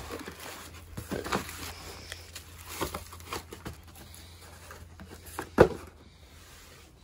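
Plastic wrap crinkling and a cardboard shipping box rustling as a plastic-wrapped axe is pulled out of the box, in irregular rustles, with one sharp knock about five and a half seconds in.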